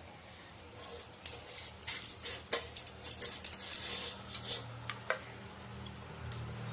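Young raw green papaya being sliced against a boti (a curved floor-mounted kitchen blade): a quick, irregular run of crisp cutting clicks and scrapes as the blade goes through the firm flesh, dying away about five seconds in. A faint low hum runs underneath toward the end.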